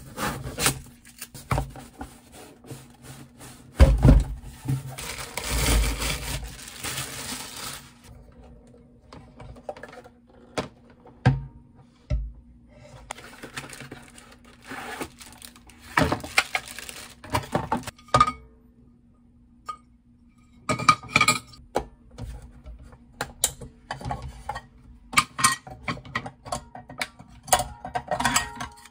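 A mini sandwich and waffle maker being unboxed and handled: cardboard packaging rustling and a thump, then a run of clicks and clacks as its nonstick cooking plates are unclipped and lifted out of the hinged body.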